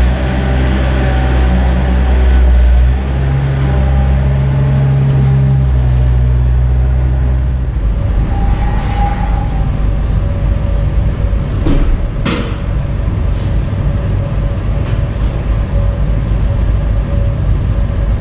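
Yanmar C30R-1 tracked mini dumper's diesel engine running as the machine pulls away, its steady drone dropping out after about seven seconds. A large sliding workshop door then rumbles and rattles as it is pulled shut, with a couple of sharp clunks partway through.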